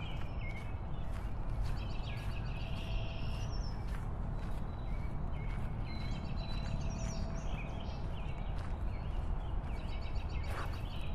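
Birds chirping in short repeated phrases over a steady low rumble.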